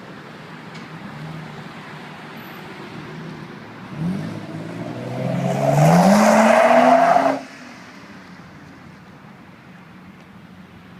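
Car with a Greddy SP Elite exhaust accelerating: the engine note rises in pitch for about three seconds, with a loud rushing noise from the exhaust over it, then cuts off suddenly as the throttle is lifted, leaving the engine running quietly. This is the exhaust sound that the owner finds strange.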